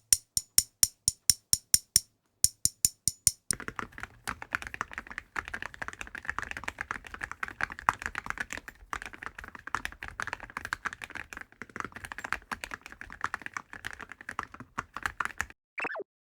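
Typing on a mechanical keyboard fitted with Awekeys full-metal keycaps: first a run of evenly spaced single keystrokes, about four a second with a short pause, then fast continuous typing. A brief falling swoosh comes near the end.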